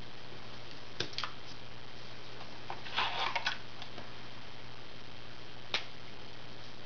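Plastic Crayola Super Tips felt-tip markers being handled on a tabletop: a sharp click about a second in, a brief cluster of clicks and rustling around three seconds, and another sharp click near the end, over a steady low hum.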